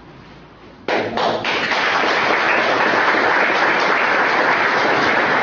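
Audience applauding: a few separate claps about a second in, then steady, dense applause.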